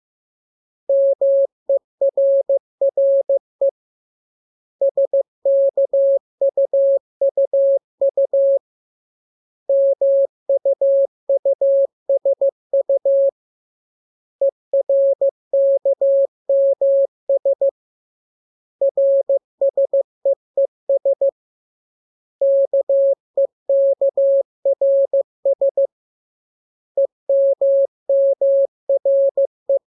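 Morse code practice signal: a single steady tone keyed on and off in quick dots and dashes, spelling out the lesson letters K, M, U, R, E and S. It comes in groups with a pause of about a second between them, seven groups in all.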